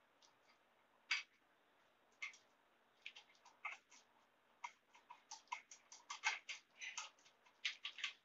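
A run of small, sharp metallic clicks from hand tools working on a garden tractor's engine and clutch area. They are sparse at first and come several a second from about five seconds in.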